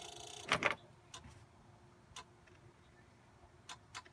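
A brief hiss and one sharp click from a Polaris Ranger that will not start, then a few faint scattered clicks. No engine cranks.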